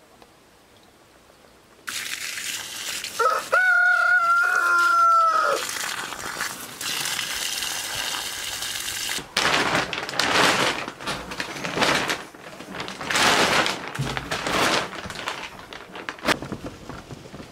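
A rooster crows once, a long call of about two seconds, over the hiss of a garden hose spraying water. The spray starts suddenly about two seconds in and later comes and goes in uneven surges.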